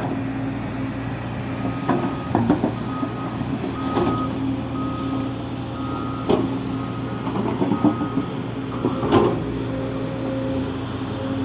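Heavy construction vehicle's diesel engine running steadily while its reversing alarm beeps about once a second for several seconds, with a few sharp metallic clanks, the loudest near the end.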